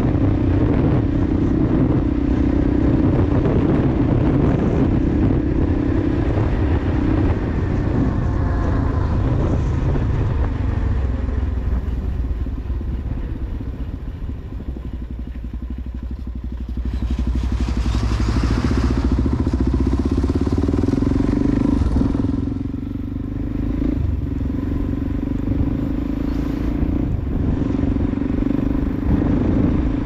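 Motorcycle engine running steadily while riding along a road, easing off briefly near the middle. Just past halfway a short rush of noise comes as an oncoming truck passes.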